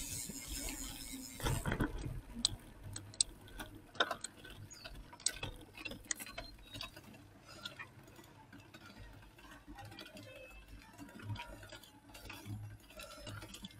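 Bicycle coasting over a rough road: its freewheel hub ticking, with irregular clicks and rattles.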